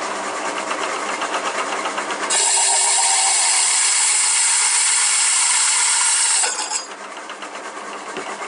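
A 1¾-inch carbide-tipped hole saw in a milling machine cutting into 7075 aluminium plate, with no centre hole to guide it. The cut starts as a steady rhythmic grinding, then about two seconds in it turns much louder and higher-pitched for about four seconds before easing back.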